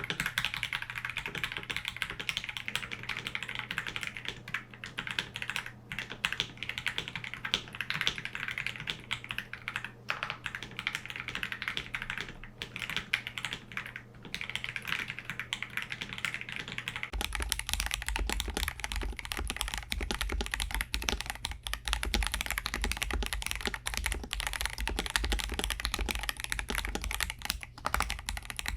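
Continuous fast typing on a KBD67 Lite R3 mechanical keyboard with Akko Starfish switches: a steady stream of key clicks and thocks. About two-thirds of the way through, a low steady hum enters the background under the typing.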